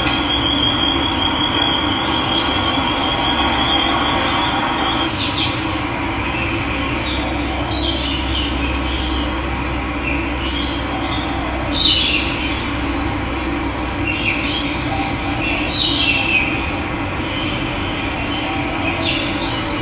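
Steady rush of running water with birds calling over it now and then: a high trill in the first two seconds, then scattered short chirps, with the loudest call about twelve seconds in.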